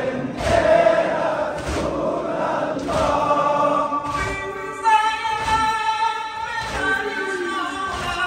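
A large crowd of men chanting a mourning noha together, with rhythmic chest-beating thuds roughly once a second.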